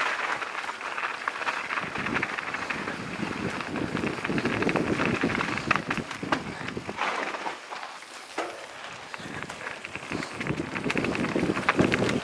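Mountain bike riding down a rough dirt trail: tyres crunching over dry leaves and stones, with a constant clatter of rattles and clicks from the bumps. The sound drops back for a moment a little past halfway, then builds again.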